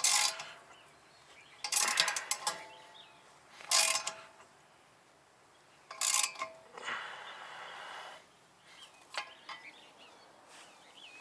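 Claw-type hub puller being wrenched on a VW Mk4 Jetta rear wheel hub: short bursts of metallic clicking and creaking a couple of seconds apart, with a few lighter clicks near the end. It is the sound of the wheel bearing starting to pop loose under the puller.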